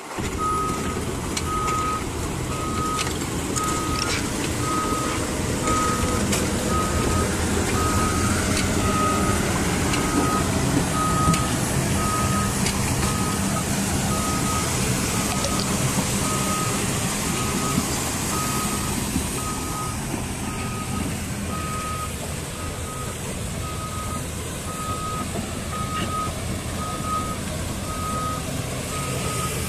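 Caterpillar 320D tracked excavator's diesel engine running as the machine travels over mud, its travel alarm beeping steadily about once a second, with a few knocks from the tracks.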